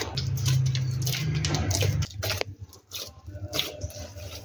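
Hands kneading soft flour-and-water dough in a stainless steel bowl: squishing and pressing, with small clicks against the bowl. A low steady hum runs for about the first two seconds, then stops.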